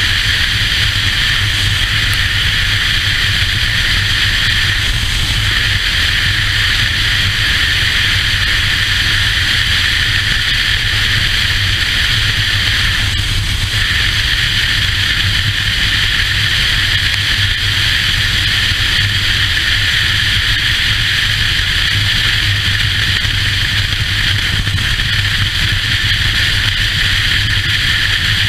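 Touring motorcycle cruising at highway speed: a steady rush of wind over the microphone over the engine's low, even drone, with no change in speed.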